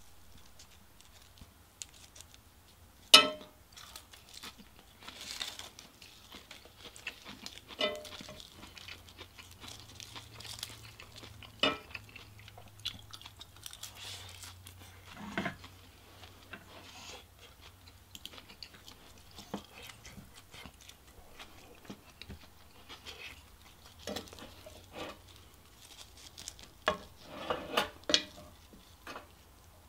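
Metal spoon scraping and clinking against a cast-iron skillet of fried rice, with a sharp clink about three seconds in and a cluster of clinks near the end. Between the clinks comes mouth-close chewing with crisp crunches of dried seaweed wraps.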